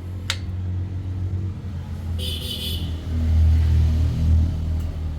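Steady low motor rumble that swells about three seconds in, with a short hiss about two seconds in and a single click near the start.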